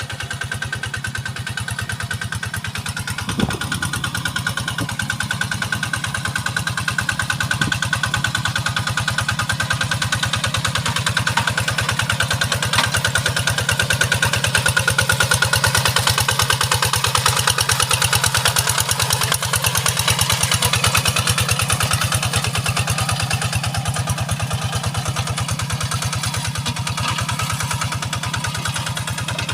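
Kubota RD85 single-cylinder diesel engine on a hand tractor running steadily while ploughing a wet rice paddy, its firing pulses fast and even. It grows louder in the middle and eases back near the end, with one short knock about three and a half seconds in.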